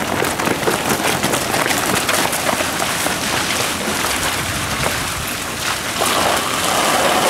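Busy scuffing and clatter of several people running on pavement and scrambling up a wooden ladder tower, a steady jumble of many small clicks and rustles.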